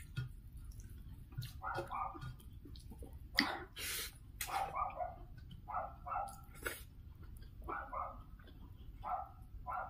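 A dog barking repeatedly in the background, mostly in quick pairs of barks every second or so. A few louder sharp noises stand out about three and a half to four seconds in.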